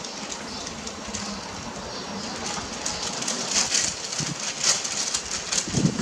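Charcoal under a rotisserie of pork sizzling and crackling as fat drips onto the hot coals, the popping growing busier about halfway. A dove coos near the end.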